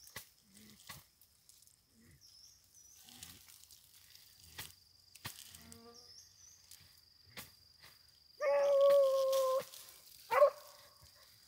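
Faint steady insect chirring with scattered light clicks, then about eight seconds in a hunting dog gives one long, level-pitched bay lasting about a second, followed a second later by a short yelp.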